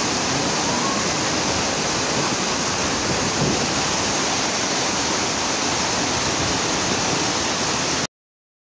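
Steady rushing noise of a fast-flowing floodwater torrent, cutting off abruptly into silence near the end.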